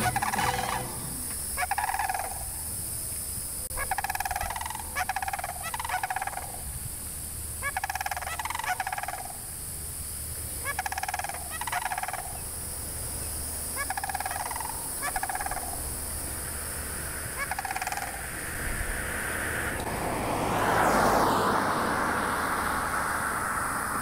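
Sandhill cranes giving their rolling, trumpeting calls in short bouts of one to three, repeated every second or two. About twenty seconds in, a rushing noise swells and fades.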